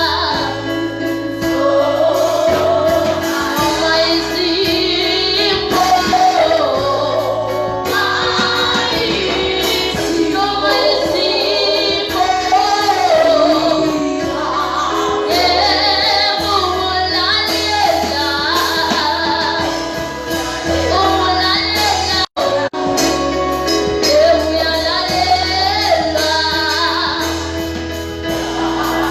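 Gospel music with a woman's singing voice over a steady accompaniment, with a brief dropout about 22 seconds in.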